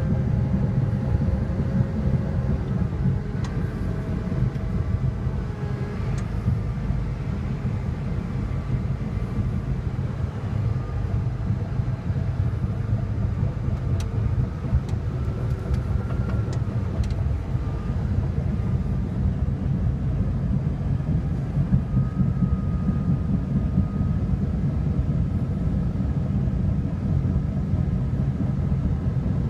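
Caterpillar D6T LGP crawler bulldozer's diesel engine running steadily with a deep rumble, faint wavering whines above it and a few sharp clicks.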